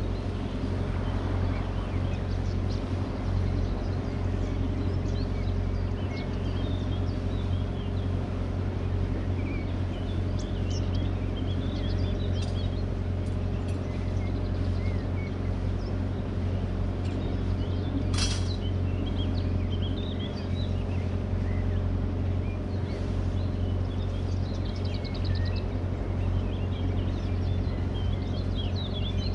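Canal boat's inboard engine running steadily at cruising speed, a constant low drone, with birds singing along the banks throughout. A brief sharp noise sounds about eighteen seconds in.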